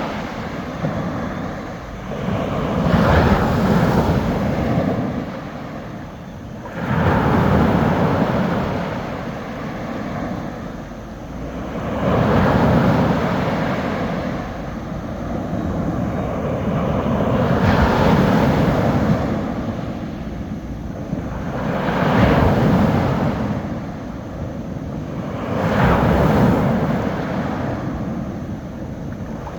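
Small sea waves breaking on the shore, a rush of surf that swells and fades about every four to five seconds.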